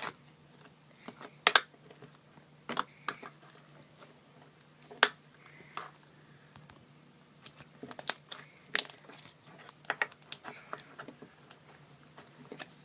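Slime being squeezed and stretched, giving irregular sharp pops and crackles, some coming in quick clusters.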